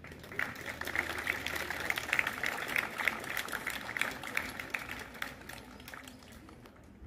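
Audience clapping: applause that builds about half a second in and tapers off over the last couple of seconds.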